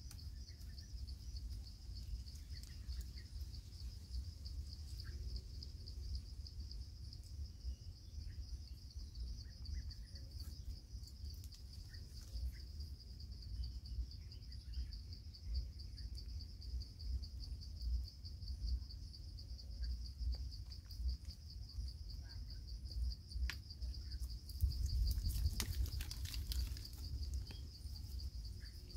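Steady, high-pitched chorus of insects trilling without a break, over a low rumble. Scattered faint clicks and rustles, busier near the end.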